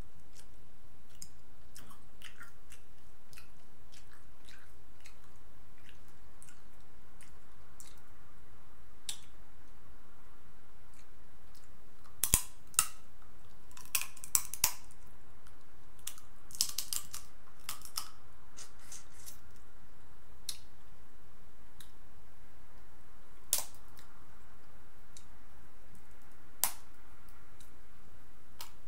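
Snow crab legs being cracked and snapped apart by hand and eaten close to the microphone: scattered sharp cracks and clicks, thickest near the middle, with a few single snaps later on.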